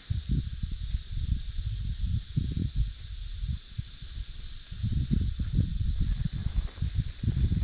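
Cicadas droning in one steady, high-pitched hiss. Irregular low rumbles run underneath, heavier in the second half.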